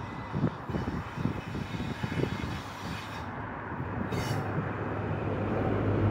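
HST Class 43 diesel power car approaching and passing close beneath, its engine a low drone with track rumble, growing steadily louder toward the end.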